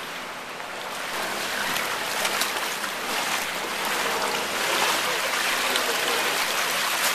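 Steady rushing noise of floodwater flowing, growing louder after about a second.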